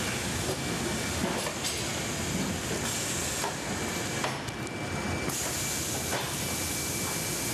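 Steady conveyor and factory machinery noise as shrink-wrapped bundles are pushed across metal rollers: a constant rumble and hiss with a faint high whine and a few light clicks. The hiss gets brighter for about the last two seconds.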